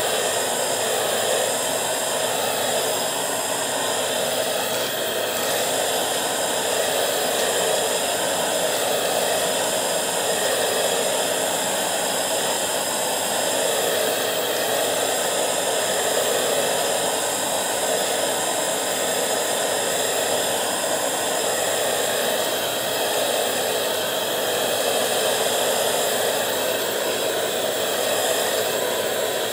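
Bissell 3-in-1 stick vacuum running steadily, its floor nozzle pushed back and forth over a shag rug; the rush of suction air swells and eases gently with each stroke.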